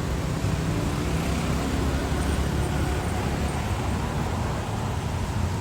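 Steady city street traffic noise: cars passing, with a low engine hum and tyre noise.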